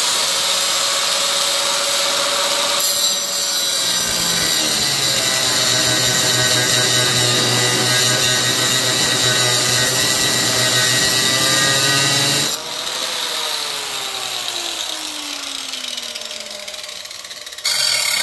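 Corded angle grinder with a cut-off wheel cutting into a rust-seized nut and bolt on a steel mower deck, splitting the nut. The motor note drops under the load of the cut. About twelve and a half seconds in it is switched off and its pitch falls as it winds down, then it gives one short burst near the end.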